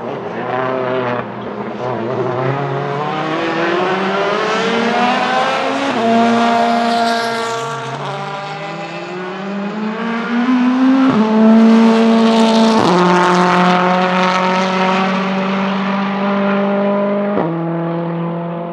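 Volvo S60 Polestar TC1 touring car's turbocharged 1.6-litre four-cylinder engine accelerating hard. The revs climb in rising sweeps, with several sudden drops in pitch as it changes up a gear.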